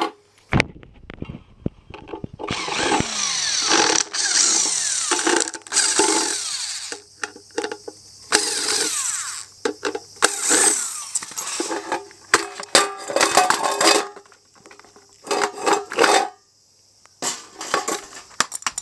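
Cordless power driver spinning screws out of the plastic underside of a small hot plate: one long run of about four seconds, then a string of short bursts with the screws rattling.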